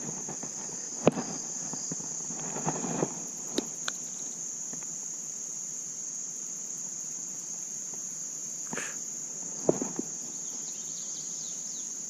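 Insects trilling in one steady, high, even drone, with a few sharp clicks and knocks, the loudest about a second in.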